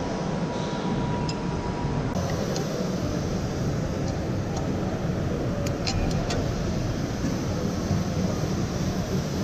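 Steady low rumbling noise of a busy hall, with a few light metallic clinks about six seconds in.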